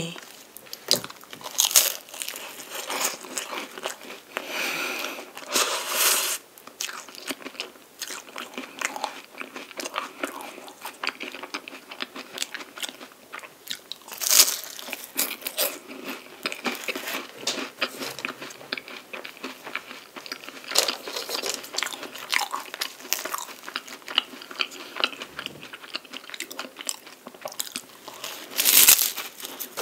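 Close-miked biting and chewing of a chocolate-coated palmier carré, crisp puff pastry dipped in whipped cream: a steady run of crackly crunching, with louder crunchy bites about 14 seconds in and near the end.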